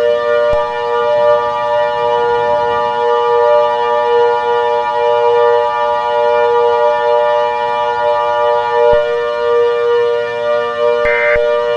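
A siren holding one steady pitch with a slow, even wavering. Near the end, the first short buzzy data burst of an Emergency Alert System header begins.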